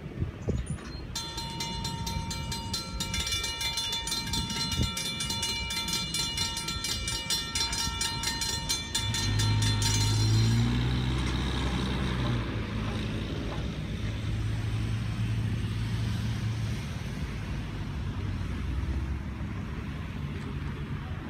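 Railroad crossing-signal bells ringing with fast, evenly repeated strikes, cutting off about ten seconds in. Just before they stop, a postal delivery truck's engine pulls away across the tracks, and a low engine drone carries on after the bells.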